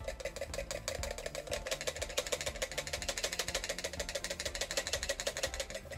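Electrostatic static grass applicator running as it is shaken over glue, giving a steady, rapid mechanical ticking buzz.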